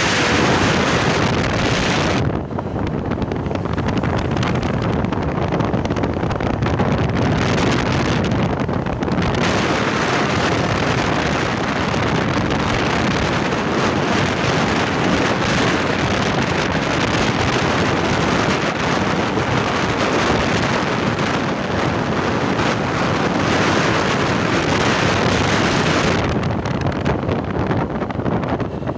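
Intercity bus with a growling ('ngorok') modified exhaust, running on the road: a steady, loud mix of engine and road noise with heavy wind rushing over the microphone.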